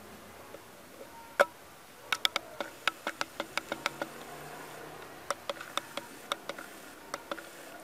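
A run of short, sharp, irregular clicks and taps over a faint background. One louder click comes about a second and a half in, a quick cluster follows over the next two seconds, and a sparser group comes later.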